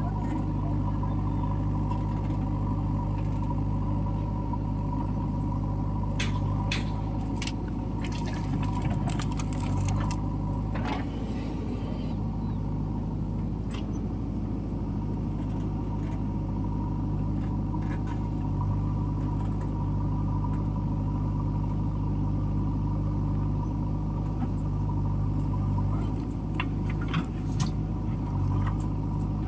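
A diesel engine of heavy machinery running steadily at constant speed, with a few short knocks and clicks scattered over it.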